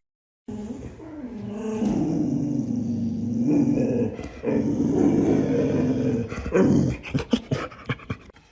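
A dog's long, drawn-out vocalizing in two stretches, with a short break about four seconds in. A run of clicks or knocks follows near the end.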